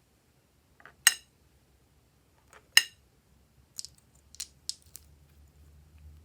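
Slime being handled: two sharp clicking pops about a second and a half apart, then a quick run of four lighter clicks.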